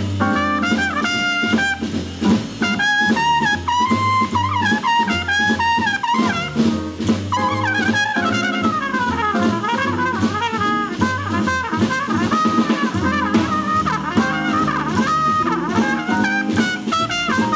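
A trumpet plays a jazz solo with a winding, fast-moving melodic line, backed by upright bass walking low notes and a drum kit keeping steady time.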